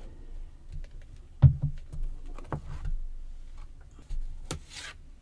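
Paper-covered chipboard box pieces being handled on a tabletop: scattered light taps and clicks, one knock about a second and a half in, and a brief papery slide near the end.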